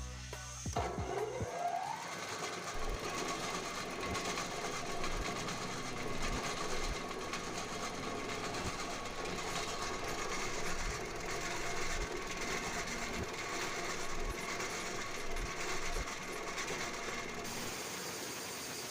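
Piston air compressor's electric motor starting and spinning up with a rising whine in its first second or two, then running steadily. It starts and turns the pump freely, a sign that the check valve, repaired with a bearing ball, is working normally.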